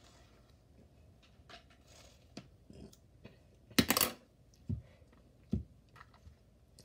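Handling noises of toy packaging: faint rustles and clicks, a brief loud rustle of a paper instruction sheet about four seconds in, then two soft thumps.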